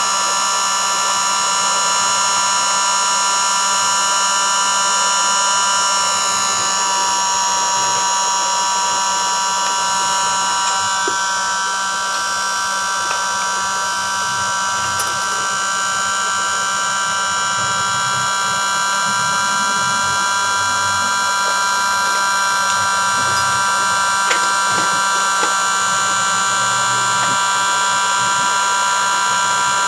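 Electric heat gun running steadily, its fan motor giving a constant whine over the rush of hot air as it heats the edge of a motorcycle headlight lens to soften the sealant.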